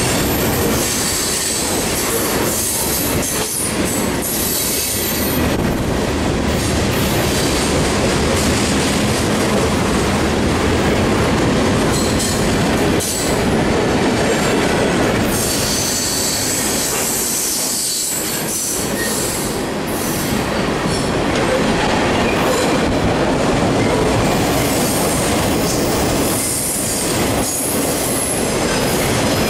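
Freight cars (boxcar, gondola and autoracks) rolling past close by: a loud, steady rumble and rattle of wheels on the rails, with high-pitched wheel squeal coming and going.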